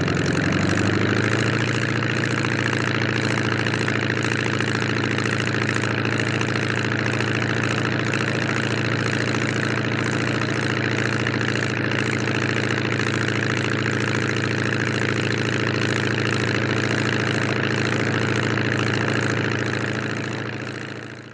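Demoiselle single-propeller airplane engine idling, heard from outside the aircraft. Its pitch rises slightly in the first second or so, then it runs steadily before fading out at the end.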